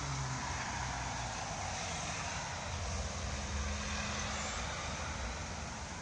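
A motor vehicle driving past: a steady engine hum under a rush of tyre noise that comes up at the start and eases off near the end.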